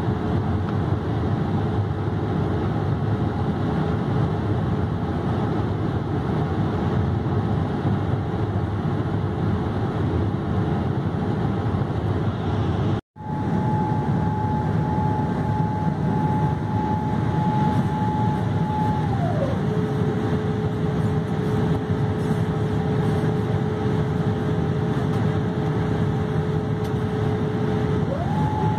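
Steady roar of a Boeing 787-8 cabin in flight, engine and airflow noise heard from a window seat by the wing. After a brief dropout about halfway, a thin steady whine comes in, slides down in pitch a few seconds later and climbs back up near the end.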